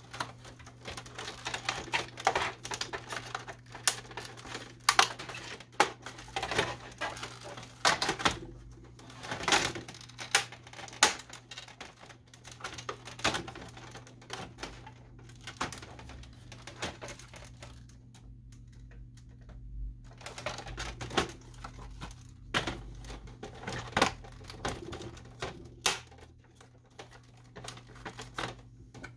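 Plastic snap-fit tabs clicking and the plastic top cover of a Canon Pixma MG6220 printer clattering as it is unclipped and worked loose by hand: irregular sharp clicks and knocks, with a quieter pause about two-thirds of the way through. A steady low hum lies underneath.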